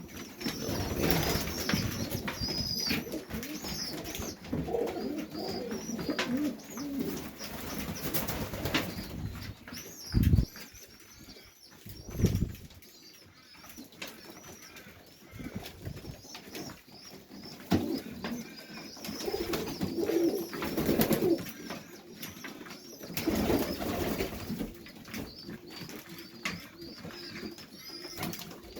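Highflyer pigeons cooing repeatedly, with thin high cheeps. Two dull thumps come about ten and twelve seconds in.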